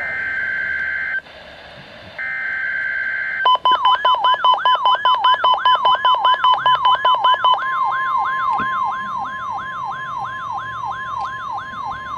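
NOAA Weather Radio alert signalling: two roughly one-second bursts of the screechy two-tone SAME digital header, then, about three and a half seconds in, the steady 1050 Hz warning alarm tone starts with a warbling siren-like sweep repeating about four to five times a second over it. This is the signal for the routine weekly test of the Emergency Alert System.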